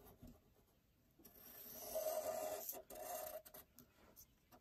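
Sharpie felt-tip marker rubbing along paper as it traces around the edge of a cardboard template. A longer stroke starts about a second in and a shorter one follows, with a few light clicks.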